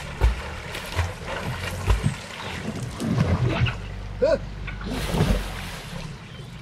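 Water splashing and sloshing as a swimmer struggles to climb onto a capsized drop-stitch inflatable kayak, which tips over on him. Four short low thumps come through the splashing, with brief voice-like sounds of effort in the middle.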